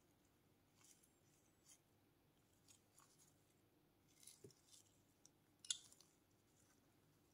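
Faint handling sounds of nitrile-gloved fingers on a smartphone: soft scattered taps and rustles, with one sharper click late on.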